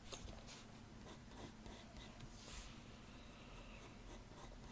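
Faint scratching of a graphite pencil sketching on paper, in short strokes, one a little louder about halfway through.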